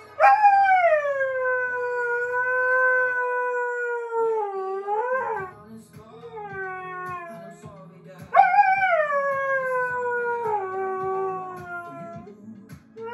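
Alaskan malamute howling along to a song: a long howl that starts high and slides down, held for about four seconds, a few short rising notes, then a second long falling howl about eight seconds in. The song's steady beat plays underneath.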